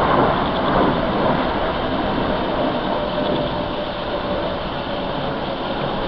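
Aircraft flying past overhead: a steady engine noise with a faint tone that falls slightly in the middle.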